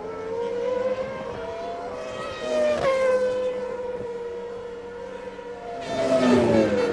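Formula One race car engines at high revs, two cars passing one after the other, the pitch of each dropping sharply as it goes by; the second pass, near the end, is the louder.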